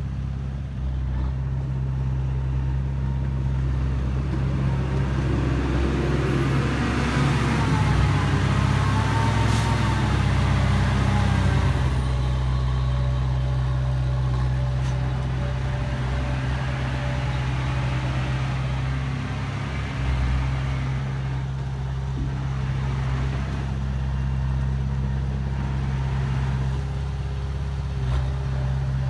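Heavy diesel earthmoving machinery running steadily, a low engine drone that grows louder for several seconds about a quarter of the way in, with a wavering higher whine over it.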